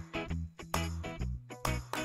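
Instrumental background music with a strong bass line and a steady beat.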